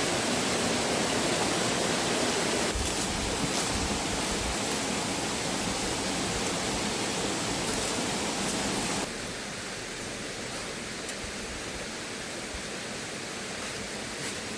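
Steady rushing of river water, which drops suddenly to a quieter level about nine seconds in.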